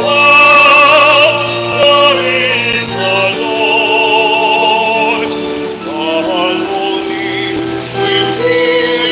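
A slow religious song for communion: a solo singer holds long notes with a wide vibrato over sustained accompanying chords.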